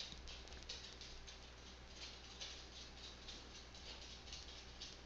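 Faint buzz and irregular crackle of an AC TIG welding arc on aluminium tubing, under a steady low hum.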